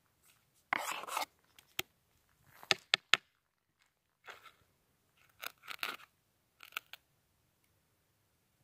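Gloved fingers scraping and pushing gravelly soil around in a detecting scoop: irregular crunching scrapes with a few sharp clicks of grit and stones, while the dirt is searched for a tiny gold piece.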